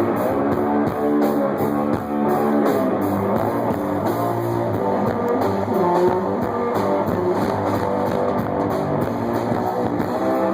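Live punk-blues rock band playing an instrumental passage: guitar riffing over a drum kit, with no singing.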